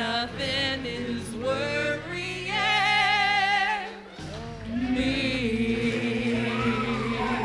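Mixed gospel vocal group, three men and two women, singing in harmony into microphones, the voices wavering with vibrato. About five seconds in they settle into a long held chord.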